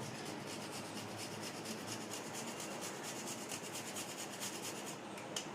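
Whole nutmeg being grated on a small grater: a steady run of rapid, even scraping strokes that stops shortly before the end, followed by a light click.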